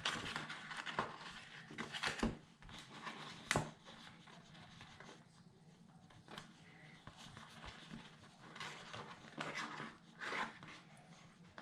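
Soft paper rustling and light clicks as sticker letters are peeled from their sheet and set onto a scrapbook page, with one sharper click about three and a half seconds in.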